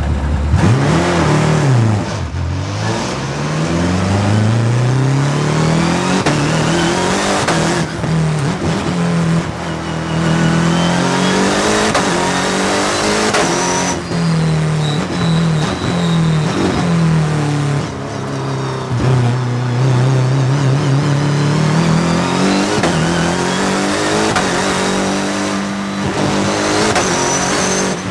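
Twin-turbo BMW Motorsport P63 V8 of the Bergsteiger E36 M3 hill-climb car pulling hard, heard from the car's roof. Its pitch climbs under acceleration and drops back several times as the car shifts or lifts for corners.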